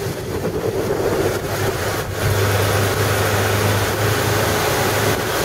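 Vehicle engine running steadily with road and wind noise while driving; the engine hum grows louder about two seconds in.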